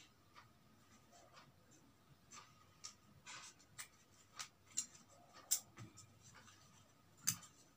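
Large fabric scissors snipping cuts into a folded piece of cloth: a string of short, quiet snips and blade clicks, with a few louder ones in the second half.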